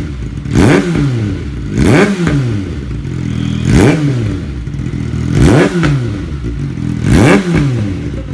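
Kawasaki ZX-6R inline-four engine running with its stock exhaust pipe removed, blipped up to high revs and dropped back to idle five times, about every one and a half to two seconds.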